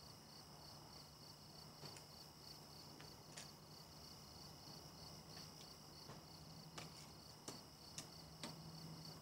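Faint crickets chirping steadily in quick, even pulses, with a few soft clicks scattered through.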